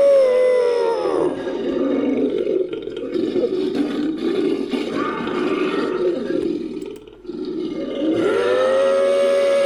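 Made-up creature sound effect: a steady, siren-like wail drops in pitch and gives way to a rough, growling roar, which breaks off briefly near the end before the wail rises back up to a steady pitch.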